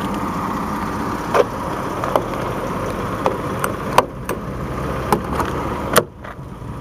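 Vehicle engine idling steadily, with scattered light clicks and taps. A louder sharp click comes about six seconds in, and the engine sound drops after it.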